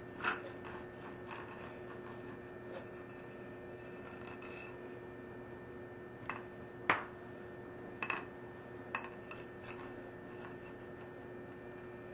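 A few light metallic clinks and taps from a short piece of copper pipe and tools being handled, the loudest about seven seconds in, over a steady low hum.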